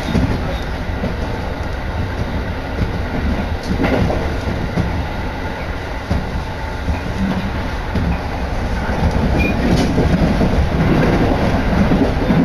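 Interior running noise of a moving Tokaido Line electric commuter train: a steady rumble of wheels on rails, getting louder in the last few seconds.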